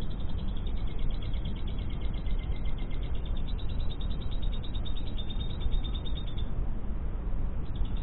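Recorded lovebird song played as masteran (song-training audio) for a caged lovebird: a fast, high, closely repeated chattering trill that stops about six and a half seconds in. Under it is a steady low rumble.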